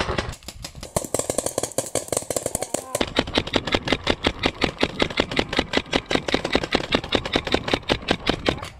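Paintball markers firing rapidly, a fast string of sharp pops many times a second, with a brief break about three seconds in.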